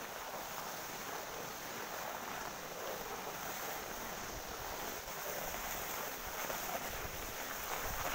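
Steady rushing hiss of wind across the microphone, with low rumbling buffets joining from about five and a half seconds in.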